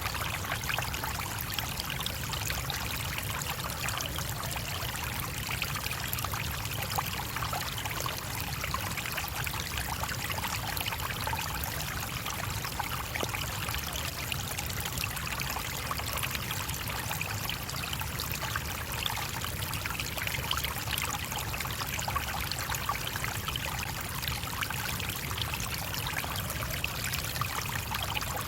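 Small stream flowing over stones, a steady babbling and trickling of running water that does not change.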